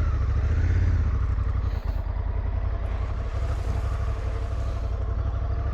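Parallel-twin adventure motorcycle engine running steadily at low revs with a low, even pulse as the bike is ridden slowly off-road.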